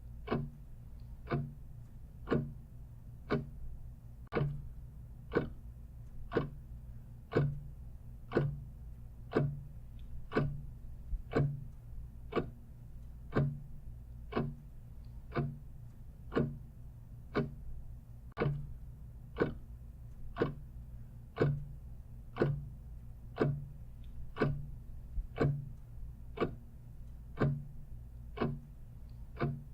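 Clock ticking steadily, about one tick a second, over a faint low steady hum.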